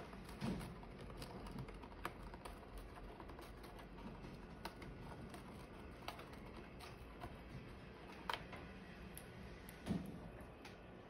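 A small parrot's beak picking and tapping at a cardboard cookie box and its plastic wrap: faint, irregular light clicks and taps, with a soft thump about half a second in and another near the end.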